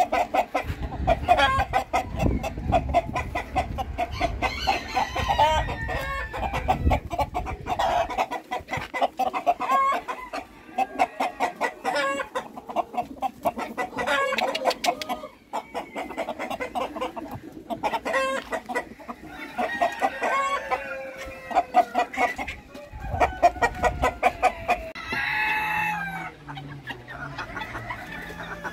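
A flock of chickens clucking and calling almost without pause, with roosters crowing a couple of times in the second half.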